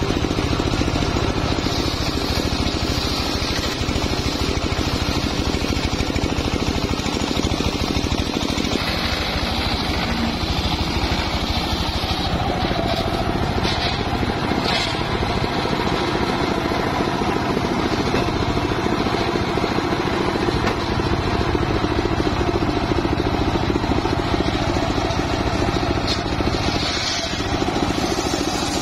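Engine-driven homemade circular sawmill running steadily, its blade cutting through a teak log at the start, then running on while the log is moved, with a few knocks about halfway and near the end.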